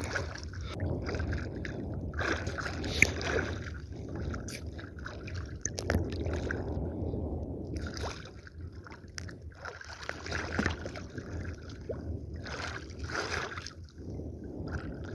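Seawater sloshing and splashing in irregular surges.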